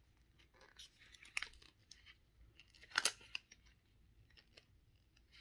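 Thin plastic installation strip being fed through a rubber grip sleeve by hand: faint rustling, scraping and small clicks, with one louder crackle about three seconds in.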